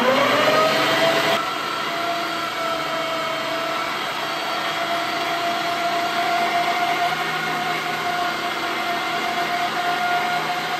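LEM electric meat grinder switched on: its motor whine rises over about the first second as it spins up, then runs steadily while grinding raw fish fillets and shrimp.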